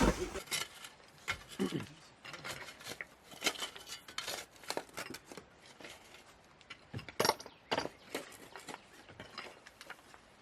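Scattered light clinks and knocks, irregular and a few to the second, the loudest about seven seconds in.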